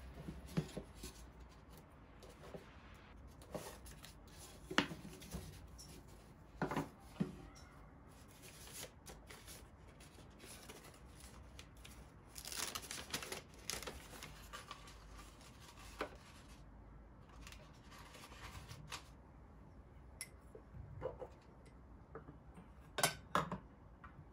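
Objects being handled: scattered light clicks and taps, with a stretch of rustling and scraping about halfway through.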